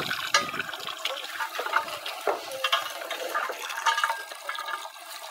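Hand-cranked apple crusher grinding apples: irregular crunching and rattling clicks as the toothed rollers break up the fruit.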